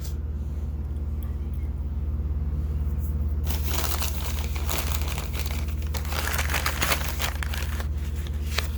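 Plastic packaging crinkling and rustling as it is handled, in a run from about three and a half seconds in until about seven and a half seconds in, over a steady low hum.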